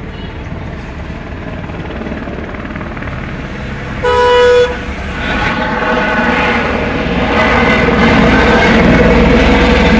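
Helicopter engine and rotor noise, growing steadily louder as the helicopter flies in low overhead. A vehicle horn honks once, about half a second long, about four seconds in, and is the loudest sound.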